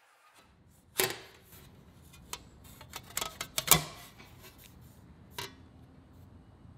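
Sharp clicks and light metal taps from handling a thin sheet-metal oil pan brace plate as it is set onto a sealant-coated oil pan flange, the loudest about a second in and near four seconds.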